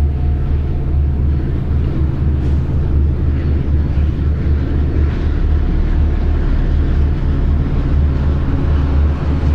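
Diesel locomotive hauling a long freight train, a steady low drone with no break.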